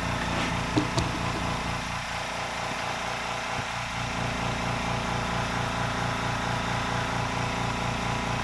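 Air compressor running steadily, a motor hum with a regular low pulsing several times a second. A couple of small clicks about a second in.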